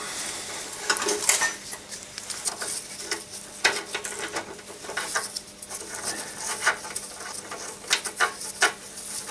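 Irregular small metallic clicks, taps and scrapes as a clutch cable is worked free by hand from its fitting on the pedal assembly, with a few sharper clinks.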